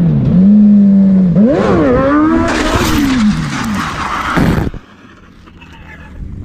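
Sport motorcycle engine running at speed, its pitch dipping once, then swinging sharply up and down as the bike goes out of control. A loud scraping rush follows as the bike and rider go down and slide along the asphalt, cutting off suddenly about four and a half seconds in.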